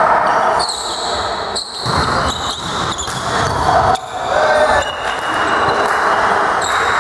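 Volleyball play on an indoor court: shoes squeaking sharply on the floor several times, with ball hits and players' shouts in between.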